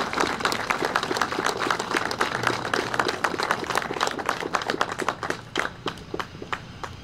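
Audience applauding, a dense patter of many hands clapping that thins out and stops near the end.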